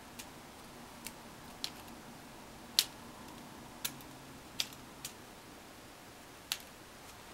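Light, sharp clicks and taps at irregular intervals, about eight of them with one louder near the middle, from small tools and parts being handled at a soldering bench.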